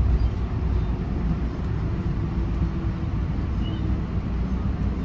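Steady low rumble of an NJ Transit Comet passenger coach rolling along the track, heard from inside the car, with a faint steady hum under it.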